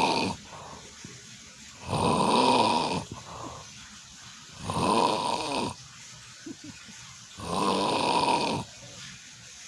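Sleeping cat snoring, with a loud snore about every three seconds and quieter breaths between.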